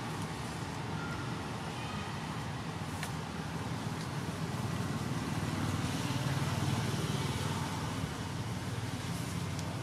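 Low, steady background rumble that swells slightly about six seconds in.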